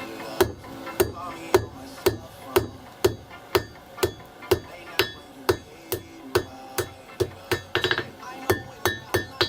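Blacksmith's hammer striking on a 115 kg South German double-horn anvil, steady blows about two a second, each with a short metallic ring, as in forging a leaf.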